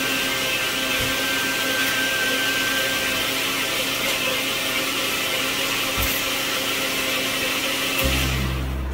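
Steady hiss of a pot of frothy milky liquid on the boil. Background music with a low bass line comes in near the end.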